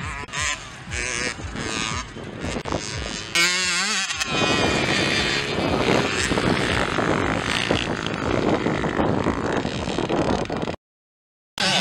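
Mini motocross bike engines revving on a dirt track, with one engine's pitch gliding up and down about four seconds in. The sound cuts out abruptly near the end.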